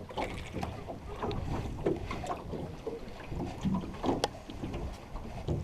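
Wind on the microphone over water lapping at a small boat, with scattered light knocks and clicks from handling in the boat.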